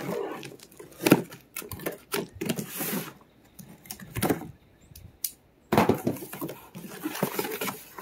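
A cardboard box being opened by hand: packing tape torn and peeled off and cardboard flaps scraped and pulled open, making irregular rips, scrapes and crackles. Midway there is a quieter stretch, then denser rustling as the flaps come open.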